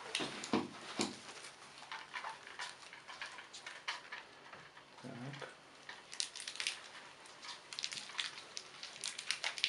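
Thin plastic Fanta bottle label crinkling and crackling as it is peeled off a soft gelatin jelly, with irregular clicks that come thicker in the second half.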